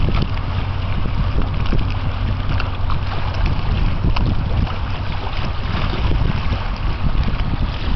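Wind buffeting the microphone in a continuous rumble, over a steady low hum of a boat engine.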